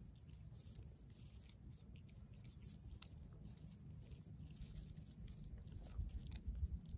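Cat chewing and crunching a raw whole fish: faint, irregular wet crunches and clicks of teeth on flesh and bone. A few low thuds come in near the end.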